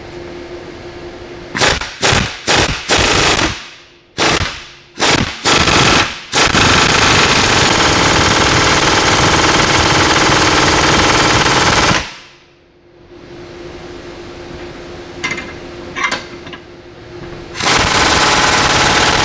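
Pneumatic impact wrench hammering on the stuck cap of a CNG high-pressure gas filter housing clamped in a vise. It starts with a few short trigger blips, then longer bursts and a continuous run of about six seconds, pauses with a couple of brief taps, and runs again in a long burst near the end. The cap does not budge.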